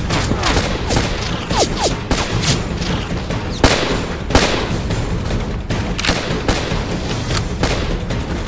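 Battle gunfire: a rapid, irregular crackle of rifle shots, a few louder than the rest near the middle, over a continuous low rumble of distant booms.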